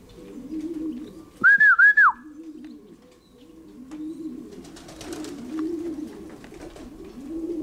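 Racing pigeons cooing in the loft, with a loud, short, warbling whistle about one and a half seconds in. Around five seconds there is a brief clatter of wingbeats as a pigeon takes off from the loft roof.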